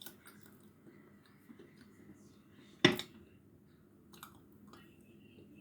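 Chalk being bitten and crunched close to the microphone, with small dry clicks and one much louder sharp crack about three seconds in.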